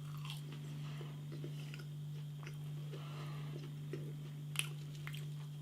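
A mouth chewing potato wedges, faint small wet clicks with one sharper click about four and a half seconds in, over a steady low hum.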